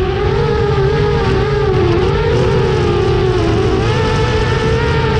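FPV quadcopter's brushless motors (T-Motor Velox 2306.5 1950kv) spinning 5.5-inch props, humming at low throttle while the drone hovers near the ground. The pitch holds steady with slight wavering and steps up a little about four seconds in.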